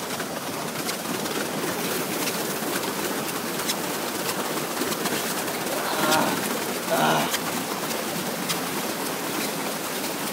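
Steady splashing and churning of water from a paddleboat's paddlewheel pedaled hard, with two short yells about six and seven seconds in.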